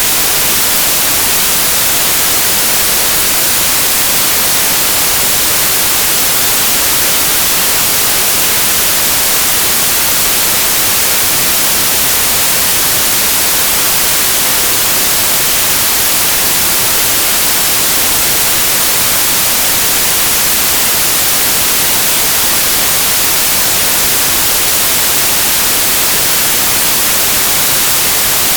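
Synthetic white noise: a steady, even hiss, strongest in the highs, unchanging throughout.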